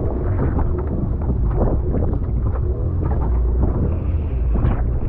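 Wind buffeting the microphone in a steady low rumble, with water splashing and knocking irregularly against the hull of a small wooden boat on a choppy sea.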